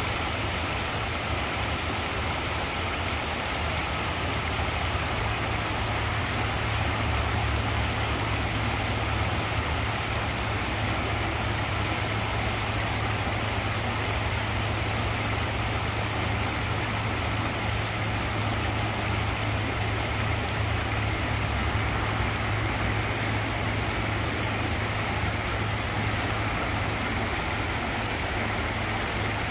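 Steady low drone of an inland cargo ship's diesel engine as the vessel passes on the river, over an even rushing hiss.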